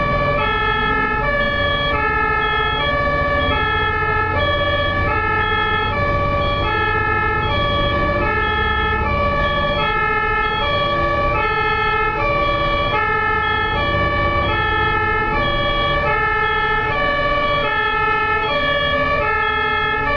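German two-tone emergency siren (Martinshorn) of a fire engine sounding continuously, alternating evenly between a high and a low note, each held about two-thirds of a second, over a low rumble.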